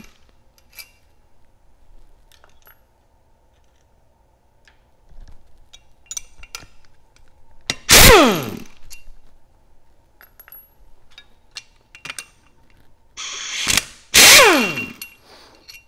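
Cordless impact wrench spinning out the bolts of a gas regulator's spring tower in three short runs, about 8 s in and twice near the end, each winding down in falling pitch as the trigger is let go. Light clinks of socket and bolts come in between.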